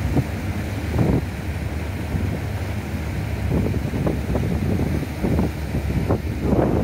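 Tender boat under way: a steady low engine rumble, with wind buffeting the microphone and water rushing and splashing along the hull in irregular gusts.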